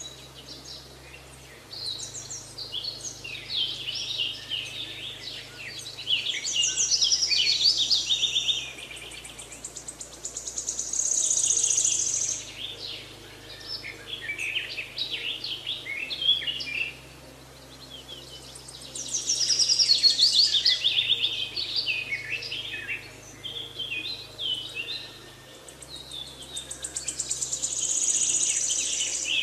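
Birds chirping and singing in quick trills and high whistles, swelling into busy clusters every few seconds. Faint low held notes sit underneath and shift pitch every few seconds.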